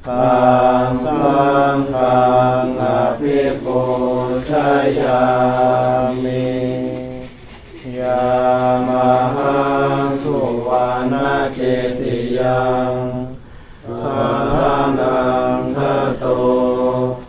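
A group of Buddhist monks chanting in unison in long, sustained phrases, with two brief pauses, about halfway through and again about three-quarters of the way through.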